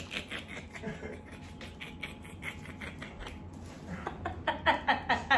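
A woman's near-silent, breathless laughter: quick breathy puffs in a steady rhythm that grow louder near the end.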